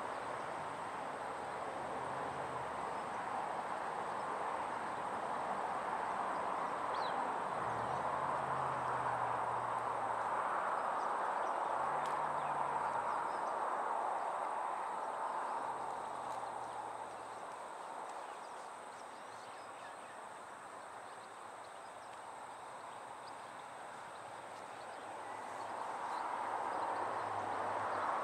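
Outdoor ambience: a steady hiss that swells and fades slowly over several seconds, with a few brief low hums in the middle.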